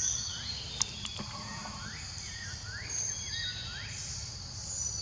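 Forest ambience: a steady high insect drone, with a quick run of short rising chirps in the middle and a single sharp click just under a second in.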